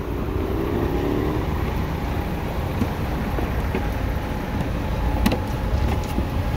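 Steady low rumble of a bus engine running, with a few light clicks about five seconds in.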